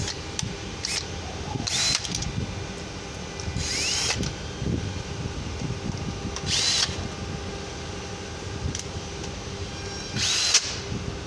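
Cordless power drill/driver running in bolts in four short bursts, each a whine that rises in pitch and falls away, as the transmission oil strainer is bolted on.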